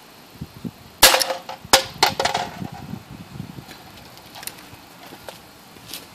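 A pellet gun fired through a tennis ball fitted over its muzzle as a makeshift silencer, shooting a cotton swab: one sharp crack about a second in, followed within the next second by a second sharp click and a few lighter knocks.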